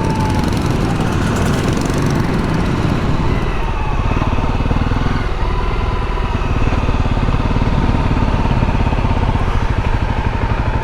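Motorcycle engine running steadily under way, heard from on board the bike, with wind noise on the microphone that fades after the first few seconds.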